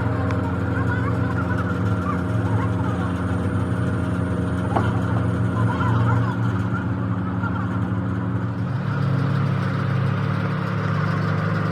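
An engine running steadily, its tone shifting about nine seconds in.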